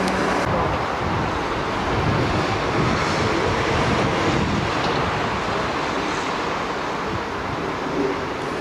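Steady rushing wind noise buffeting the microphone.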